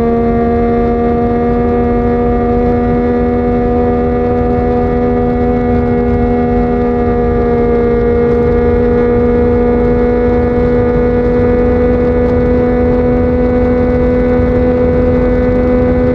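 Yamaha MT-09's three-cylinder engine through a Yoshimura R55 slip-on exhaust, held at nearly steady revs while cruising, its pitch creeping up slightly over the second half.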